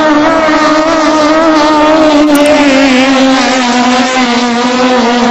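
Turbocharged engines of racing longtail boats running at full throttle: a loud, steady high-pitched drone that wavers a little and sags slightly in pitch toward the end.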